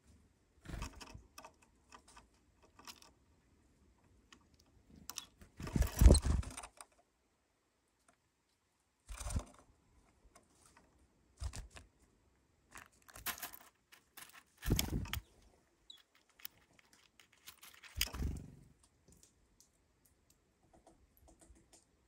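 Sunflower seeds clicking and rattling in a plastic feeder bowl as small birds land at the rim and pick through them. Irregular taps throughout, with several heavier thumps, the loudest about six seconds in.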